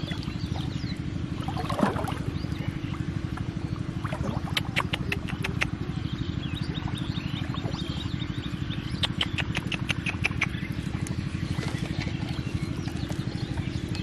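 A small engine running steadily with a fast, even low throb. Short runs of sharp high ticks come about five seconds in and again from about nine to twelve seconds.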